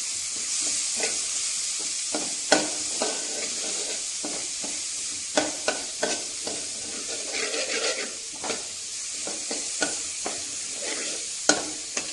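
Chopped ginger and garlic sizzling steadily in hot sesame oil in a metal pan, while a metal spoon scrapes and taps against the pan as they are stirred. The ginger and garlic are being sautéed so that their water cooks off.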